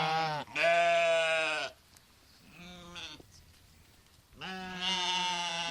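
Sheep bleating: a call trails off just after the start and a loud bleat follows about half a second in. A fainter, shorter bleat comes in the middle, and another bleat begins near the end.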